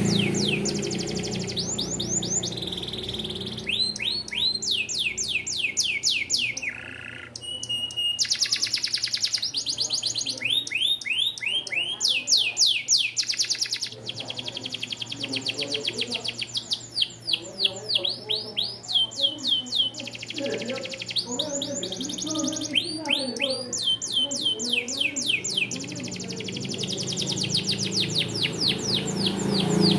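Canary singing a long, continuous song of rapid trills: runs of fast, evenly repeated down-sweeping notes that switch to a new phrase every second or two. A low steady hum runs underneath.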